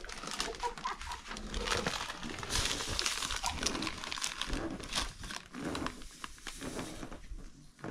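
Plastic bag crinkling and crackling in the hands as salt is poured from it into a metal basin of flour, busiest in the middle.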